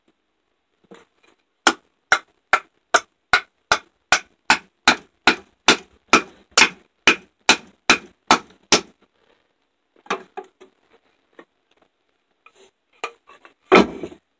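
Wooden baton striking the spine of an MTech fixed-blade knife, about eighteen steady blows at two or three a second, driving the blade down through a thin stick (batoning). A few light knocks follow, then one loud heavy thump near the end.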